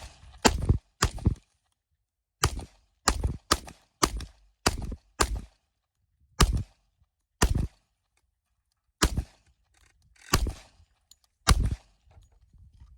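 FN FNX-45 Tactical pistol firing .45 ACP ball rounds, about thirteen shots. The first shots come quickly, roughly two a second, and they slow to about one a second near the end.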